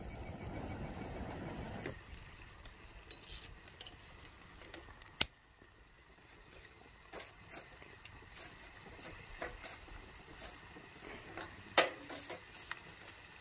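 Camp cookware and utensils being handled: scattered light clinks and taps, with two sharper knocks about five seconds in and near the end. A soft rushing noise fills the first two seconds, then stops.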